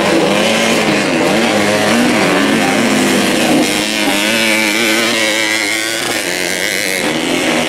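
Several modified underbone race motorcycles, small two-stroke and four-stroke engines, revving high and overlapping one another, their pitch rising and falling as the riders accelerate, shift and back off through the dirt track's corners.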